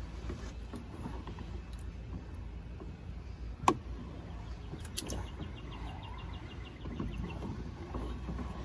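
A wooden ship's-wheel steering rig with a rope drum being turned, winding the rudder line. A single sharp knock comes a little under four seconds in, then a lighter click and a brief run of fast light ticks about five seconds in, over a low steady background rumble.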